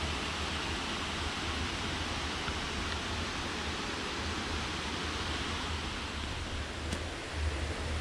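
Steady rushing of a woodland stream, an even wash of water noise with a low rumble beneath it.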